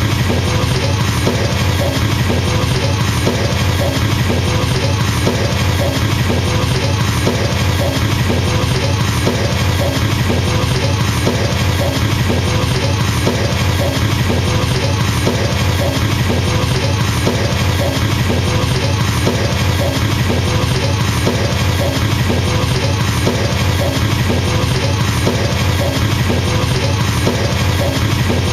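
Drum kit with double bass drum pedals kicked in a very fast, unbroken stream, a steady machine-gun rattle of low thuds with other drums accenting on top.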